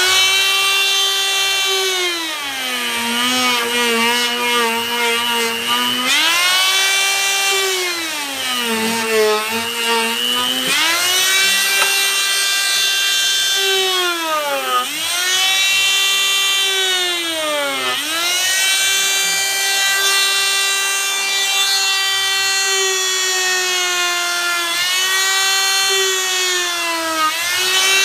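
Die grinder spinning a hollow-ground rotary burr against wood, burnishing a carved eye: a high-pitched whine that drops in pitch each time the burr is pressed in under load and rises back as pressure eases, again and again.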